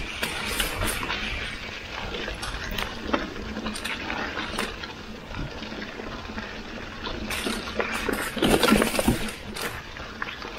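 Mountain bike tyres rolling over dry fallen leaves on a dirt trail: a continuous crunching rustle with scattered crackles, and a louder rough patch about eight and a half seconds in.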